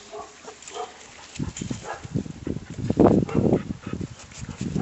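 Dogs growling in rough play: rapid, rumbling growls start about a second and a half in and are loudest around the middle.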